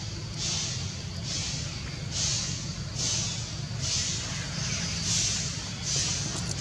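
Pulsing insect chorus in forest: a high, hissing buzz that swells and fades about once a second, over a low steady rumble.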